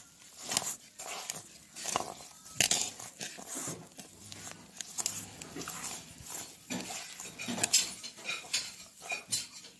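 A hand kneading sticky, wet bun dough in a metal bowl: irregular squelches and slaps, with the dough and hand scraping against the bowl's sides.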